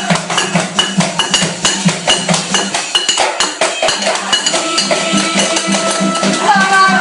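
Music with a quick, steady percussive beat; a pitched melodic part comes in near the end.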